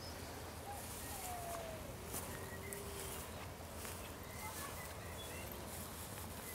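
Faint, scattered bird calls over a steady low background rumble.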